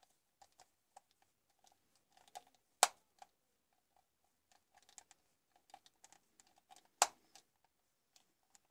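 Small screwdriver turning the screw in the plastic underside of a computer mouse: a run of faint, irregular ticks and scrapes, with two sharp, louder clicks, about three seconds in and about seven seconds in.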